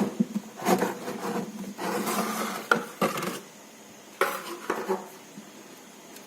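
Hands handling a boxed diecast excavator model and its packaging: several short bursts of rustling, scraping and light clicks and knocks, stopping about five seconds in.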